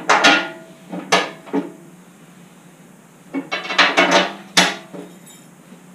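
Steel bolts and hardware clinking and rattling against a steel ATV snow-plow blade as they are fitted by hand: a few sharp clinks in the first second or so, then a quicker cluster about three and a half seconds in.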